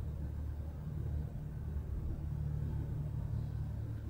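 Low, steady background rumble and hum of room tone.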